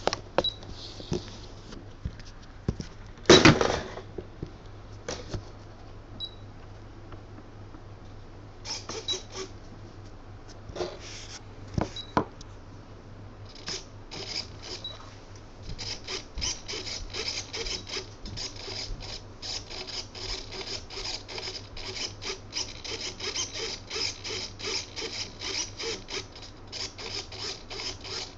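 RC model servos whirring in short repeated bursts, several a second, as the plane's control surfaces are moved by radio during a range check, which shows the Futaba 2.4 GHz link still holding. Before that, scattered handling knocks, the loudest a knock about three seconds in.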